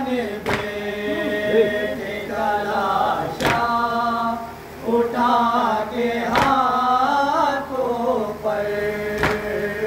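A group of men chanting a noha, a Shia lament for Husain, in unison, with long held notes. A sharp slap of chest-beating (matam) keeps time about every three seconds, four strokes in all.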